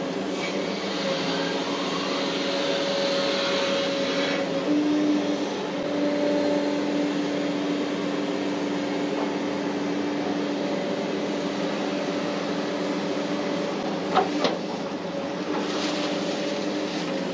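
Hitachi 850LC excavator's diesel engine and hydraulics running under working load, heard from inside the cab: a steady pitched drone that steps up slightly in pitch about five seconds in. A single sharp knock comes about fourteen seconds in.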